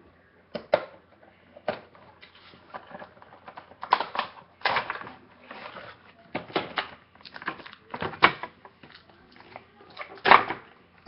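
Cardboard toy box and its packaging being opened and handled: irregular clicks, scrapes and rustles, with the loudest one about ten seconds in.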